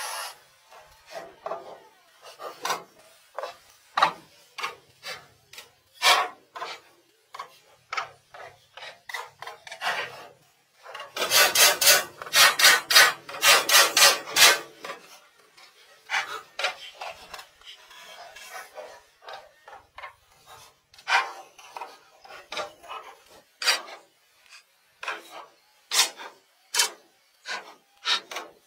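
Hand tool rubbing and scraping over wood in separate strokes about one a second, with a quick run of rapid strokes near the middle, like sanding or brushing boards.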